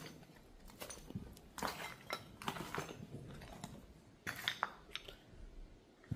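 Footsteps crunching and clinking over a floor littered with broken debris, in an irregular walking rhythm.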